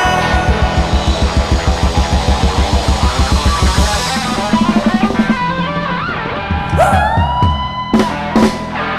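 Upbeat instrumental band music with drums and electric guitar: a fast, even beat for the first few seconds, then a note that slides up and is held about seven seconds in.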